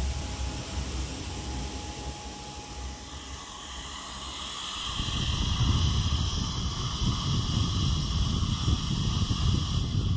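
Steady hiss of the Radonett A1UV radon aerator's airflow. About halfway through it changes to air blowing out of the aerator's screened exhaust vent in the outside wall, a fuller hiss with a low rumble under it.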